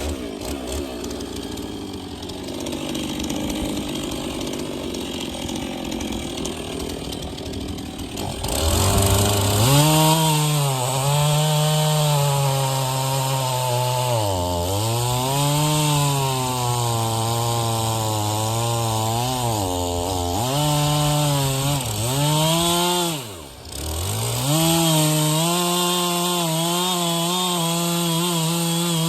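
Two-stroke chainsaw bucking firewood logs. For the first eight seconds or so it runs low under load in a cut, then revs up high and holds, its pitch dipping and recovering several times as the chain bogs in the wood, with one brief drop in revs about two-thirds through.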